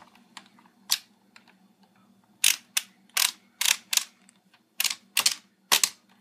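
Plastic ratchet of a toy car elevator clicking as its gear wheel is turned by hand: about nine sharp clicks at uneven intervals, most of them in the second half.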